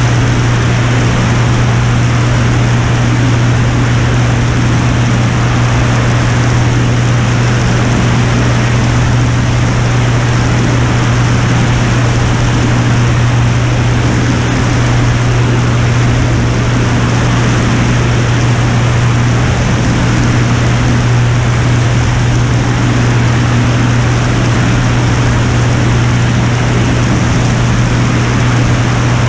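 Piper Turbo Saratoga's propeller and turbocharged six-cylinder Lycoming engine running steadily in flight: a loud, even drone with a strong low hum and no change in pitch.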